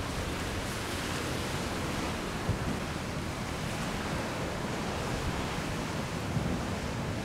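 Steady rush of breaking ocean surf, with a low wind rumble on the microphone.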